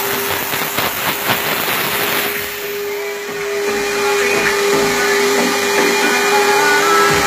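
Steam car wash machine's jet hissing with a steady hum as steam is sprayed onto a car's roof headliner, with a few clicks in the first couple of seconds.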